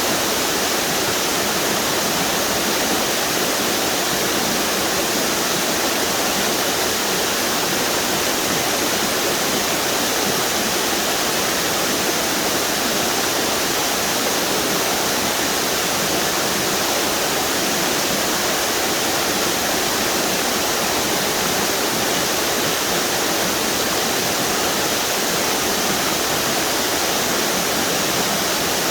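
River water pouring over a string of waterfalls, a steady, even rush with no change.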